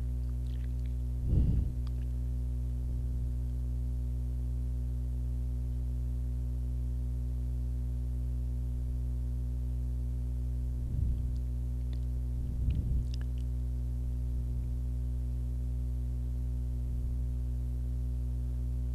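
Steady electrical hum, a low buzz with several evenly spaced tones. A few brief soft noises break in about a second and a half in, and twice more past the middle.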